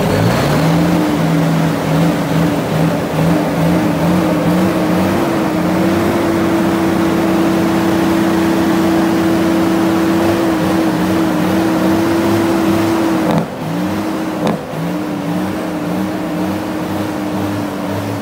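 Semi truck's diesel engine revved hard from idle, the pitch wavering for a few seconds, then held at steady high revs. About 13 seconds in the revs drop back, followed by short uneven throttle blips.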